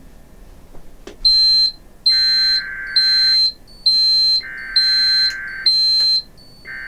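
Emergency Alert System broadcast audio: three bursts of the SAME digital header, a buzzy data warble, play while a separate high-pitched beep repeats about once a second over them. The stray beeping mixed into the header is abnormal for an alert and draws a bewildered reaction.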